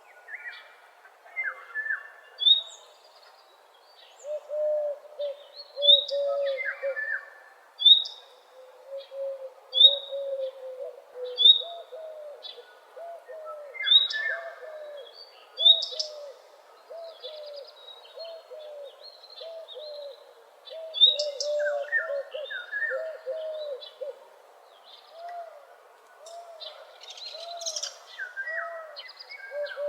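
Several birds singing together in a morning chorus. A loud, sharp high note comes back every two seconds or so, over a steady run of short low notes, with other calls in between.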